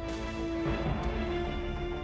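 Film score music: long held notes over a low, rumbling bass.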